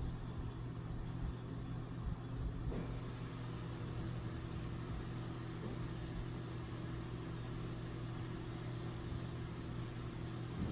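A steady low hum, like a motor running, with a few fixed tones.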